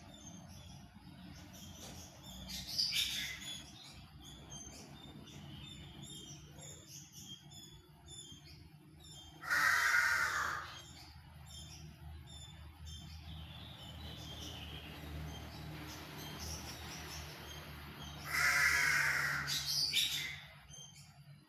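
Aviary birds calling: small birds chirp throughout, and a larger bird gives loud harsh calls, each about a second long, twice, about nine seconds apart.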